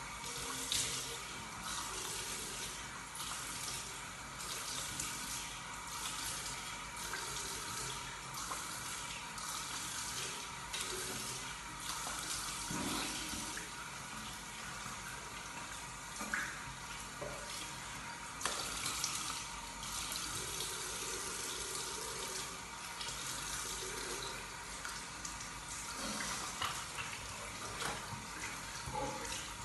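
Tap water running into a bathroom sink with irregular splashing as soap lather is washed off a face with the hands.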